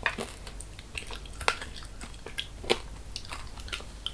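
Close-up crunching and cracking of hard caramelised sugar from tanghulu strawberries and spun-sugar strands being bitten and chewed: a string of sharp, separate cracks, two of them louder than the rest.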